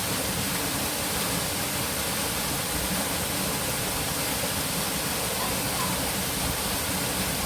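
Waterfall, its falling water making a steady, even rush.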